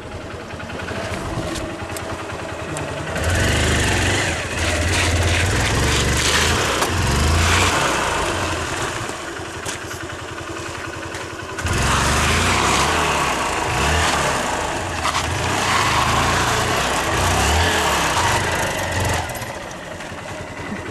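Motorcycle engine pulling hard on a rough dirt track, loud for two long stretches with a drop back to a lower throttle between them, about ten seconds in, and again near the end.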